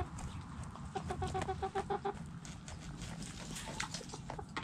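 Hens clucking, a quick run of short, even notes about a second in, among sharp clicks and scratching as the chickens peck and scratch in dry dirt close by.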